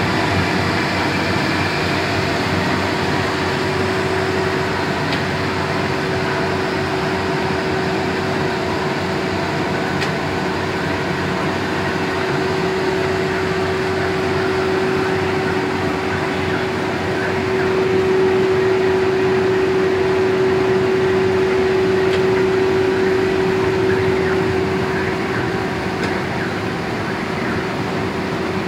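Four-colour flexographic printing press running steadily as the printed PP woven-sack web feeds through its rollers. It makes a continuous mechanical whir with one constant hum, a little louder for several seconds past the middle.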